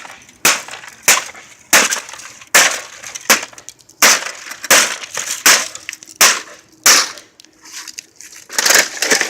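An air conditioner being smashed apart: about ten hard blows at a steady pace, roughly one every 0.7 s, with parts cracking and breaking, then a longer crunching clatter near the end.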